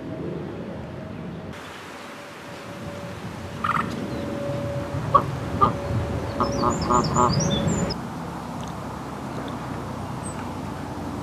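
Canada geese calling with a run of short honks about four to eight seconds in. A small bird chirps faintly over them.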